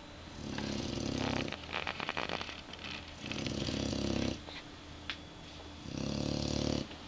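Dog snoring in slow, regular breaths: three loud snores about two and a half seconds apart, the first trailing off into a fluttering rattle.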